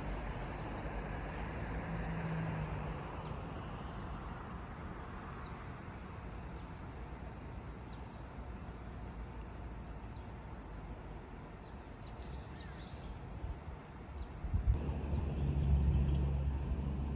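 Cicadas droning in a steady, high-pitched chorus of summer. A low rumble comes in near the end.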